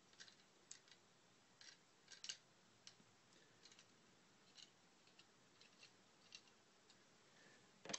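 Faint, irregular clicks and ticks of a plastic Transformers action figure's joints and parts being moved by hand while it is posed.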